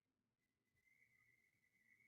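Near silence: room tone, with a very faint steady high tone that starts about half a second in.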